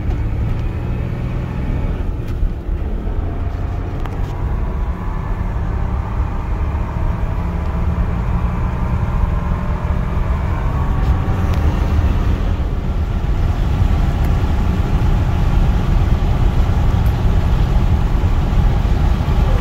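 Car driving on a highway, heard from inside: steady deep engine and tyre rumble, building slightly as the car gathers speed.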